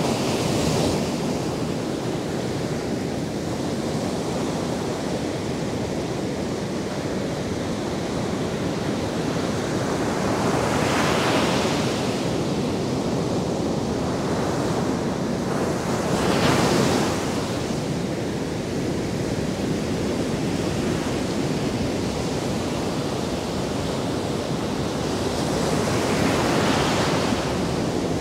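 Atlantic surf breaking on a sandy beach: a continuous wash of waves, with three louder breakers swelling and falling away, a little before the middle, just past it, and near the end.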